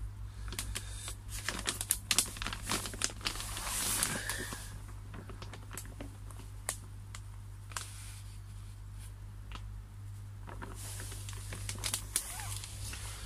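Plastic pond liner crinkling and crackling under hands as they press and smooth a repair patch over a puncture. The crackles come thick in the first few seconds, thin out, then pick up again near the end.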